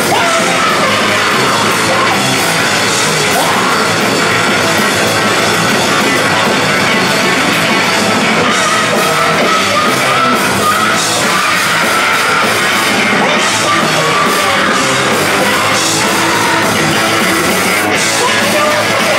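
Punk rock band playing live and loud: drum kit and electric guitar, with a woman yelling the vocals into a microphone.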